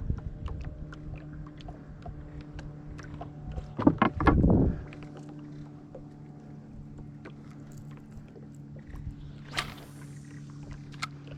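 Fishing sounds in a wooden canoe: a loud short knocking, a little under a second long, about four seconds in, and a brief hiss near ten seconds, over a steady low hum and scattered small clicks.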